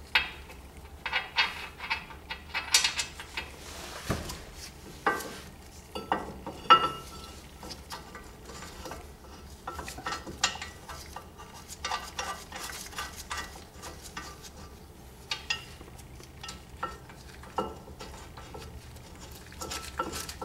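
Irregular metallic clinks, taps and scrapes of bolts and the steel caliper housing being handled and started by hand on a brake rotor, some clinks ringing briefly.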